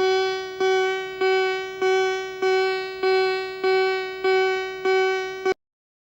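Mock emergency-alert tone: a single electronic keyboard-like note struck over and over, a little under twice a second, each strike fading before the next. It cuts off abruptly near the end.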